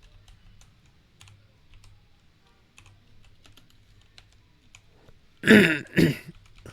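Computer keyboard keystrokes, faint and scattered in short runs of typing. About five and a half seconds in, two short, loud wordless vocal sounds from the typist break in.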